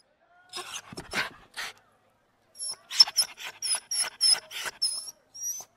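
Small puppy yapping in short, high-pitched yips: three in the first couple of seconds, then a quick run of about a dozen.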